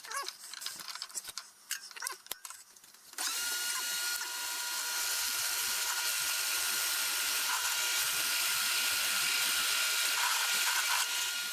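A few knocks and clicks of handling, then a drill press switches on about three seconds in and runs steadily with a constant whine, boring a 1-inch hole in wood with a Forstner bit. It stops near the end.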